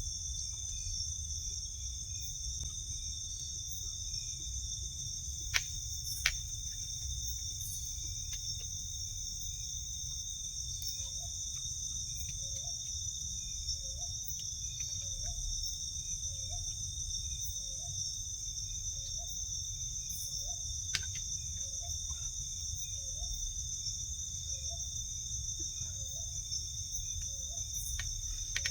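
Steady, high-pitched chorus of crickets and other insects. From about a third of the way in, a short low call that slides upward repeats about once a second, and a few sharp clicks stand out.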